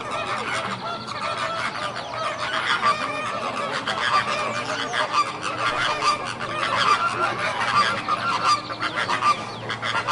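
A flock of flamingos honking and gabbling continuously, many overlapping nasal, goose-like calls at once.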